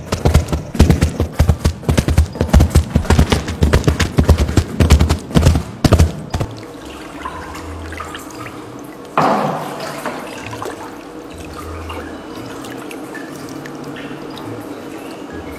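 Foley: two handheld tools beaten rapidly into gravel and straw, making fast crunching thumps for about the first six seconds. Then a wooden cutting board is dipped and swept through water in a plastic basin, giving sloshing and dripping with a splash about nine seconds in, as canoe-paddle strokes.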